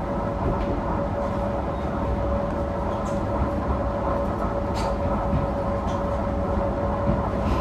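Tenryu Hamanako Railroad diesel railcar running, heard on board: a steady low engine and rail rumble with a constant tone over it, and a few faint ticks.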